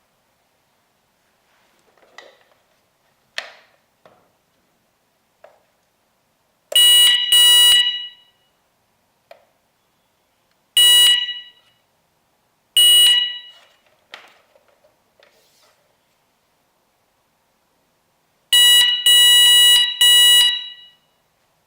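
HOMSECUR LA02 wireless alarm panel's beeper sounding loud, shrill electronic beeps: a pair, then two single beeps, then four in quick succession near the end, with soft clicks in between.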